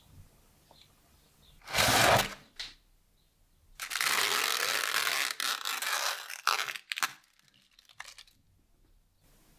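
Plastic film lid being peeled off a cardboard ready-meal tray: a long tearing crackle of film lasting about two and a half seconds, followed by a few light clicks and taps. A shorter burst of packaging rustle comes about two seconds in.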